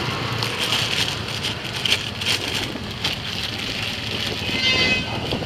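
Pestle knocking and scraping in a mortar as green papaya salad is pounded and mixed, irregular knocks over a steady low background hum like a motor running.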